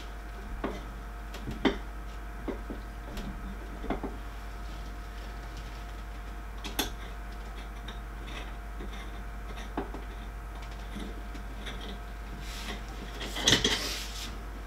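Scattered light clicks and taps of metal parts and tools as the aluminium frame of a 3D printer is screwed together, with a louder clatter of metal near the end as a frame rail is handled.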